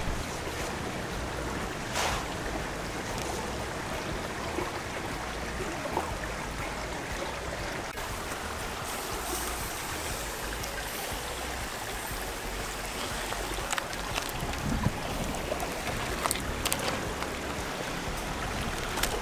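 A wood fire giving a few sharp crackles over a steady rushing noise.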